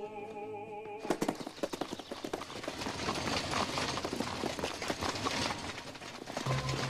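Horses pulling a coach at a gallop on a dirt road: rapid, dense hoofbeats starting about a second in. A held music chord sounds before them, and music comes back in near the end.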